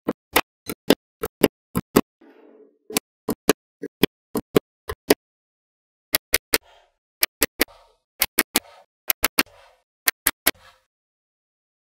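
Small magnetic balls clicking as they snap together, a long run of sharp clicks, later coming in quick bunches of three or four with short pauses between, and a faint scraping in the gaps.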